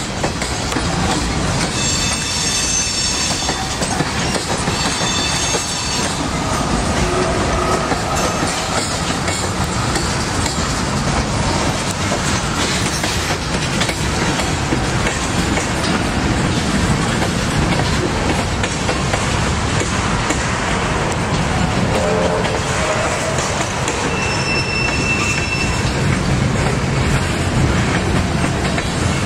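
Freight train of tank cars, boxcars and gondolas rolling past close by: a steady rumble with the clickety-clack of wheels over the rail joints. Brief high-pitched wheel squeals come about two and five seconds in, and once more late on.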